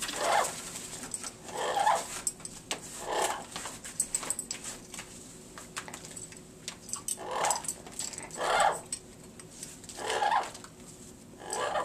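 A blue-fronted Amazon parrot bathing in a water bowl: seven short whooshing bursts of wing flapping and feather shaking, with a quieter stretch in the middle, and small clicks in between.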